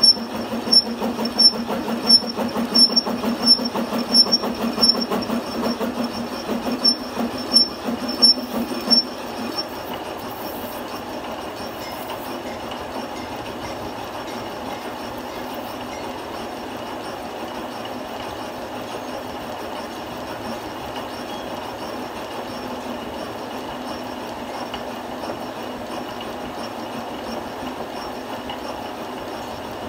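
Metal lathe running, turning a thread tap that hobs teeth into a worm gear wheel, with a steady machine hum. For about the first ten seconds a sharp metallic tick repeats about every two-thirds of a second; after that it runs steadily without the ticks.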